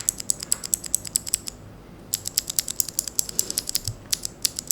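Freshly lubricated blue clicky switch on an Ajazz AK33 mechanical keyboard being pressed repeatedly to test its sound: a rapid run of sharp, bright clicks, a short pause about halfway, then another run.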